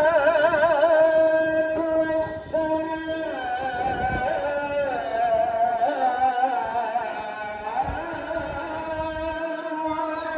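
Middle Eastern-style music: a wavering melodic line with strong vibrato over a steady held drone.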